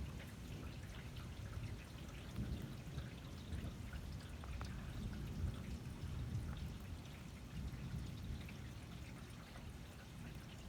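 Rain pouring and dripping steadily during a thunderstorm, scattered drops ticking over a fluctuating low rumble.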